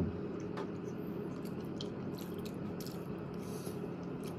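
Faint eating sounds: chewing and scattered small clicks of chopsticks against plastic takeaway containers, over a steady low hum.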